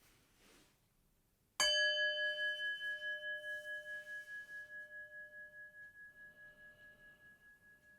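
A meditation bell struck once about a second and a half in, ringing with a few clear high tones that fade slowly with a steady pulsing wobble. It marks the close of the meditation practice.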